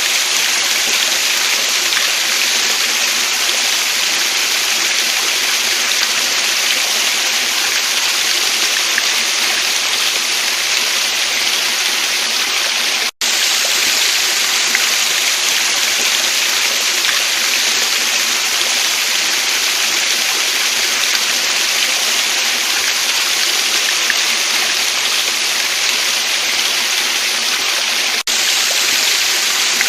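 Waterfall and stream water flowing, a steady even hiss of falling and running water with no change in strength. It cuts out for an instant about thirteen seconds in.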